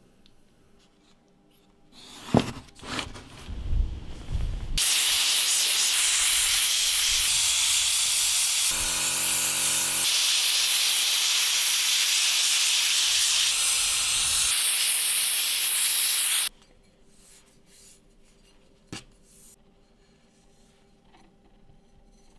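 Hand-held pot sandblasting gun blasting sand onto a steel knife blade: a loud, steady hiss of compressed air and grit that starts about five seconds in and cuts off suddenly about sixteen seconds in. A few sharp knocks come just before it.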